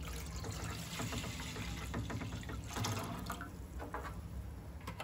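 Water pouring from a plastic bottle into a wide non-stick kadai, splashing into the water already in the pan, thinning out near the end as the bottle empties.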